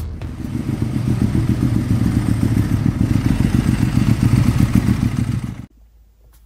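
A steady, loud engine-like running sound with a fast even pulse, cutting off suddenly about five and a half seconds in.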